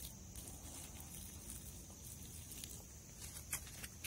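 Boiling water poured from a stainless steel kettle, pattering faintly onto weeds and concrete in sidewalk cracks, with a few light clicks about three and a half seconds in.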